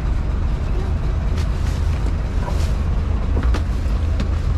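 Wind buffeting the microphone as a steady, uneven low rumble, with a few light knocks.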